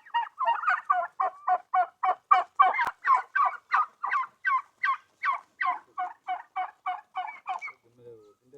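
A domestic turkey giving a long run of short, rapid calls, about four a second, which stops shortly before the end.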